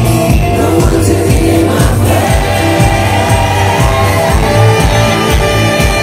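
Live pop music played loud through a festival PA system, a woman singing lead with backing voices over a steady beat.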